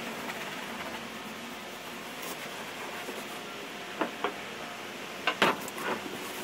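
A cloth rag wiping over the plywood of a boat transom: a few short scuffs and knocks, clustered past the halfway point, over a steady background hiss.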